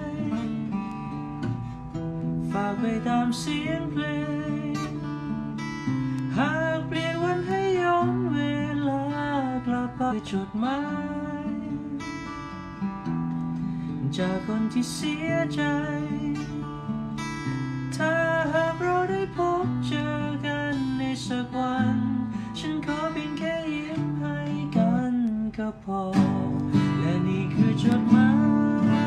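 A man singing a Thai song to acoustic guitar, his voice wavering on long held notes over steady chords.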